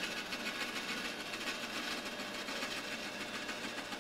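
Band saw running steadily as its blade cuts through a small strip of hardwood, trimming away the waste left after a cross cut.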